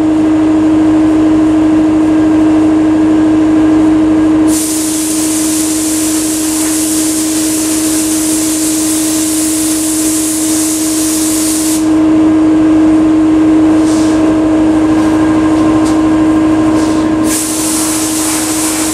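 Air-powered paint spray gun hissing: one long pass of about seven seconds starting about four and a half seconds in, two short bursts later, and another long pass near the end. A steady motor hum with a low, even pulse runs underneath throughout.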